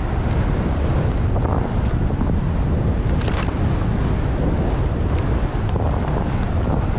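Wind buffeting the microphone of a skier's camera during a descent through deep powder, with the skis hissing through the snow. A few short clicks sound over it.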